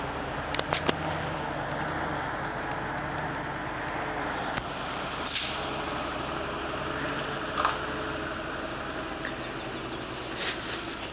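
Engine of an off-road vehicle running steadily while skidding logs, with a few sharp cracks and knocks, the loudest near the start and about seven and a half seconds in.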